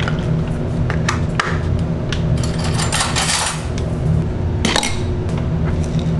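Knocks and clinks of a bowl and a plastic gallon milk jug being handled on a kitchen counter, with a hissy stretch in the middle and a small clatter near the end, over a steady low hum.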